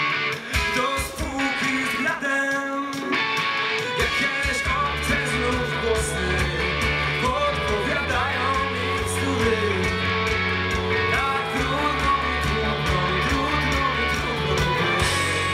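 Live rock band playing over a PA: electric guitars and a singing voice, with the bass coming in strongly about four seconds in.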